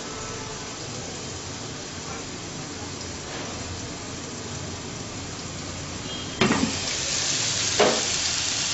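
Marinated chicken skewers frying in a closed Dessini double-sided grill pan, a steady muffled sizzle. About six seconds in, the pan's lid is swung open with a clack and the sizzle turns suddenly louder and brighter. A second clack follows about a second later.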